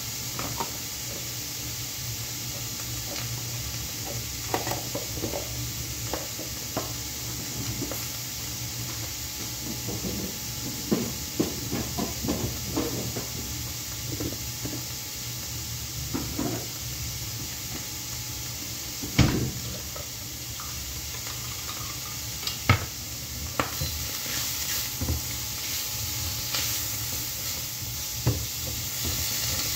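Fat sizzling steadily in a stainless steel frying pan, with scattered clinks and scrapes of a utensil against the pan. Two sharp knocks stand out, one past the middle and one a few seconds later. Near the end a wooden spatula stirs mushrooms in the pan.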